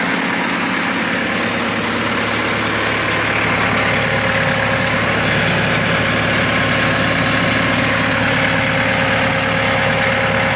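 Engine of a hydraulic cable puller-tensioner machine, used for stringing high-voltage transmission line conductors, running steadily; a steady whine comes in about four seconds in.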